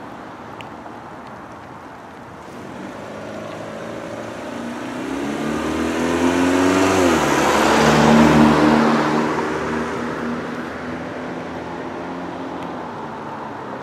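A car driving past on a wet road: the tyre hiss swells, peaks about eight seconds in, then fades, and the engine's hum drops in pitch as the car goes by.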